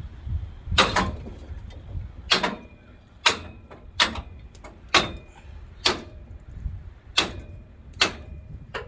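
Metal parts of a scrapped harvester being struck repeatedly, about nine blows roughly a second apart, several leaving a short metallic ring.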